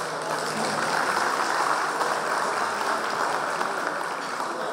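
Audience applauding: a dense, even clapping of many hands that swells over the first second or two and then eases slightly.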